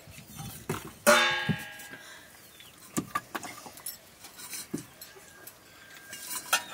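Scattered light clinks of steel plates and hands working rice during a meal eaten by hand. About a second in comes one short, loud vocal call, the loudest sound.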